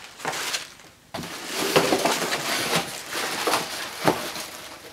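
Plastic air-cushion packing and polystyrene rustling and crackling as parts are pulled out of a cardboard box, starting about a second in.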